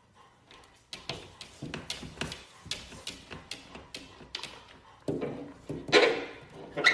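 A golden retriever puppy pawing at a glass sliding door: a run of light taps and scrabbles, a few a second, then it barks up at the glass, loudest twice near the end.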